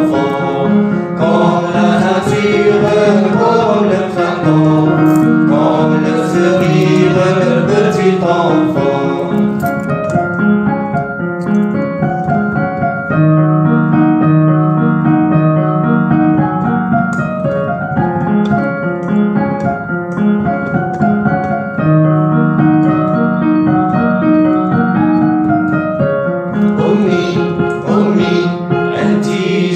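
Electronic keyboard music playing the instrumental break of a children's song, with held notes over a steady accompaniment.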